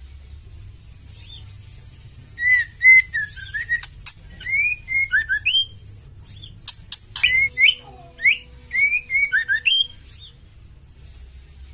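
Female white-rumped shama calling in two bursts of quick chirps and upslurred whistles, each about three seconds long, with sharp ticking clicks mixed in. This is the 'fighter' call of a female shama.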